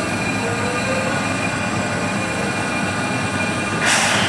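Small 0-4-0 steam locomotive with a steady low rumble, then a short, sudden burst of steam hiss near the end.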